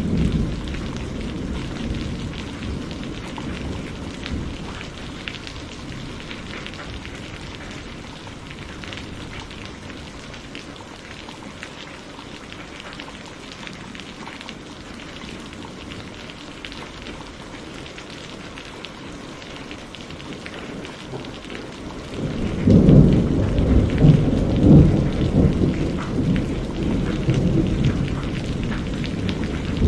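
Steady rain falling, with rolling thunder: a low rumble dying away over the first several seconds, and a louder rumble breaking in about three-quarters of the way through.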